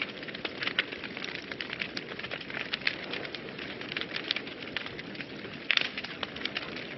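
Wood fire burning in a fireplace: a steady low rushing of flames with frequent irregular crackles and pops, a burst of louder pops near the end.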